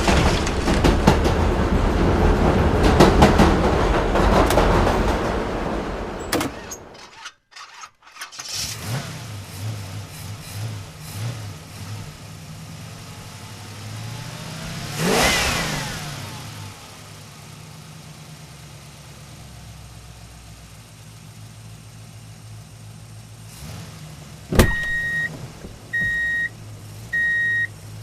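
Vehicle engine sounds: a loud, rough stretch first, then a lower steady engine hum with one vehicle passing by about halfway through. Near the end a click is followed by four short, evenly spaced high beeps about a second apart.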